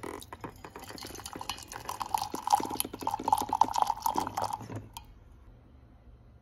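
Water pouring from a thermo pot's dispenser spout into a stainless steel gooseneck kettle, splashing as it fills. The filling takes on a clear note about two seconds in. The stream cuts off suddenly about five seconds in.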